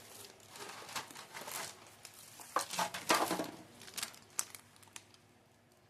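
Plastic snack wrappers being handled and crinkled in irregular bursts with a few sharp crackles. It dies down near the end.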